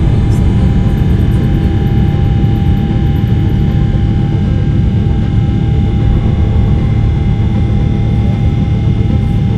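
Airliner's engines at takeoff power heard from inside the cabin: a loud, steady rumble with a constant tone over it, as the plane leaves the runway and climbs.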